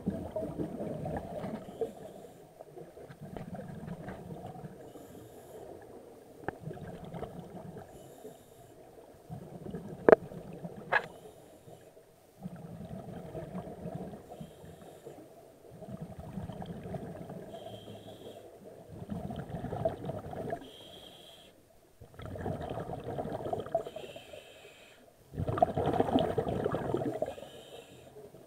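Scuba breathing through a regulator heard underwater: slow cycles of exhaled bubbles rumbling out, every few seconds, with quieter gaps between breaths. Two sharp clicks come about ten seconds in.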